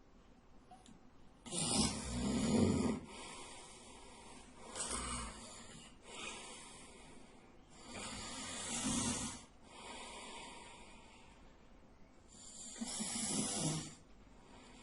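A sleeping man snoring loudly: three loud snores with a low rumble, about five seconds apart, with softer breaths between them.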